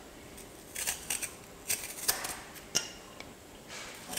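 Vegetable peeler scraping the skin off a raw potato in a string of short strokes, roughly one every half second.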